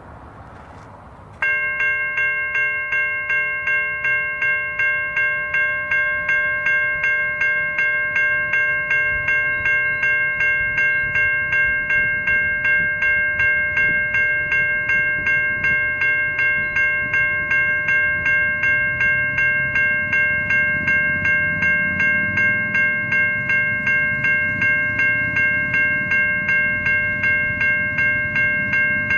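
Safetran Type 3 electronic level-crossing bells start abruptly about a second and a half in and ring on in a fast, even ding-ding-ding of bright tones as the crossing activates and the boom gates lower. A low rumble builds underneath in the second half.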